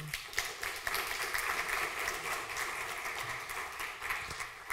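Audience applauding in a hall: a dense patter of many hands clapping that starts suddenly and fades near the end.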